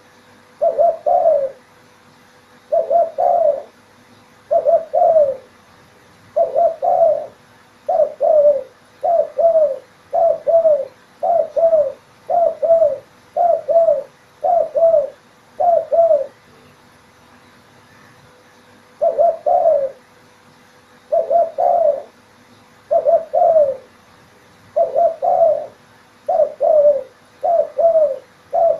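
Zebra dove (perkutut) cooing: a short, low phrase of a few notes repeated over and over, about every one to two seconds, with a pause of a few seconds a little past the middle.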